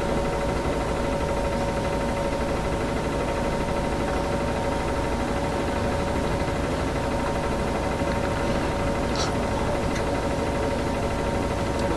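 City bus engine running steadily, heard from inside the passenger cabin: an even low rumble with a steady hum over it. A brief click about nine seconds in.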